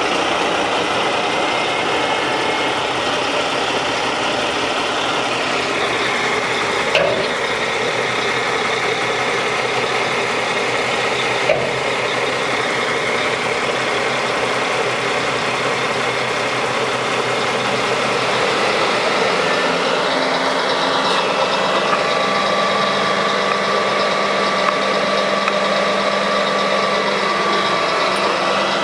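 1992 Mack RD600 dump truck's EM6-300 six-cylinder diesel engine idling steadily as the raised dump body is lowered. Two short sharp clicks come about 7 and 11 seconds in, and the engine's note shifts about two-thirds of the way through.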